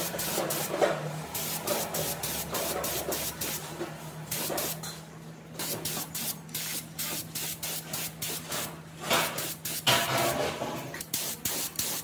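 Paint sprayed onto pipe wrench parts from a hose-fed spray gun in many short hissing passes, a few a second, with a brief pause about five seconds in. A steady low hum runs underneath.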